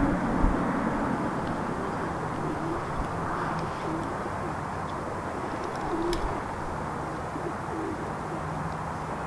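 Steady street ambience of distant traffic at a bus stop, with a vehicle's low rumble dying away in the first half second. A few faint, short low coos, like a pigeon's, come in the middle.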